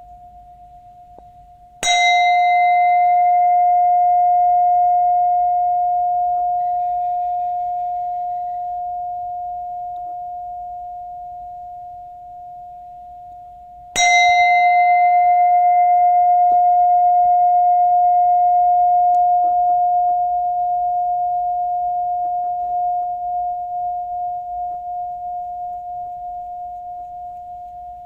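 Buddhist bowl bell struck twice, about twelve seconds apart. Each strike rings out a long, clear, steady tone with shimmering higher overtones that slowly fades. A faint ring from the bell is already sounding before the first strike.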